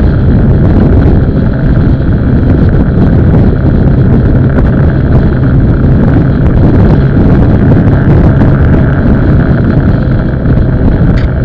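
Motorbike engine running steadily at cruising speed, with wind buffeting the microphone in a loud, steady rumble.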